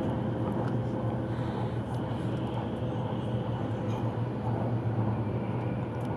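Taiwan High Speed Rail train running at speed, heard from inside the passenger car: a steady low rumble with a constant hum.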